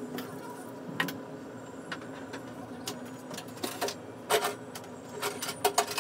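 Irregular light clicks and taps from hands handling cake decorations and the turntable on a steel worktop, loudest a little past the middle and in a quick cluster near the end, over a steady electrical hum.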